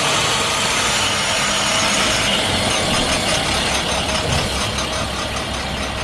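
School bus engine running as the bus drives off down the street, slowly getting quieter.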